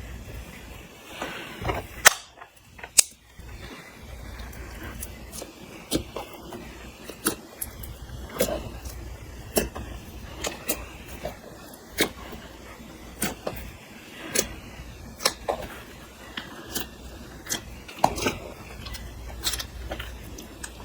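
Slime being mixed and folded, with sharp, irregular pops and clicks of air pockets bursting, one or two a second, the loudest about two and three seconds in.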